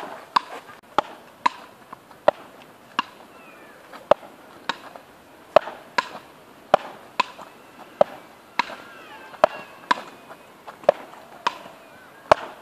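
A frescobol-style rally: a ball struck back and forth between two paddle rackets, giving sharp knocks about every half second to a second.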